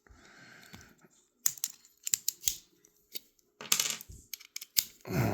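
Small metal clicks and clinks from the parts of a folding pocketknife and a screwdriver being handled while the knife is reassembled. The sharp taps come singly and in small clusters, about a dozen over several seconds.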